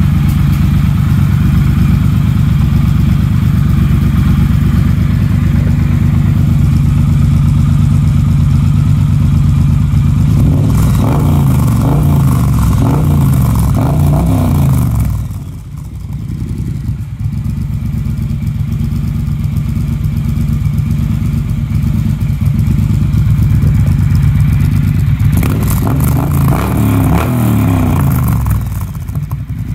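Triumph Bonneville Bobber's 1200 cc parallel-twin engine idling through a decatted Black Cone Engineering Martini ("cocktail shaker") exhaust with an X-pipe. It is blipped in a run of quick revs about ten seconds in and again near the end, settling back to a steady idle in between.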